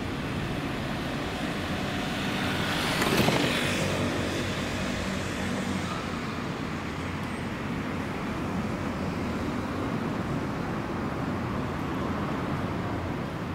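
Street traffic: a car passes close by about three seconds in, over a steady rush of road traffic.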